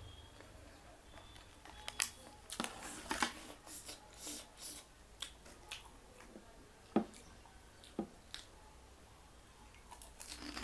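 Close-up eating sounds: scattered soft wet squishes and sharp mouth clicks, busiest about two to five seconds in.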